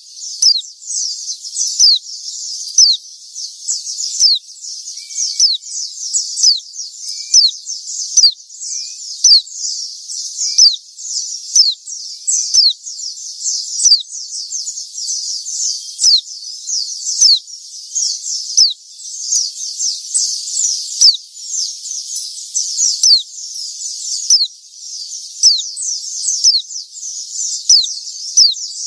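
White-eye (pleci) calling: a continuous stream of high, thin chirps, each a quick falling note, in rapid runs of a second or two with short breaks between.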